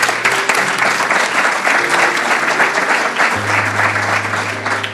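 Audience applauding, with background music underneath.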